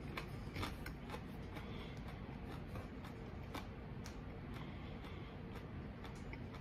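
Faint, irregular soft clicks and ticks of mouth sounds from chewing a hot pepper with the mouth closed, over low room hum.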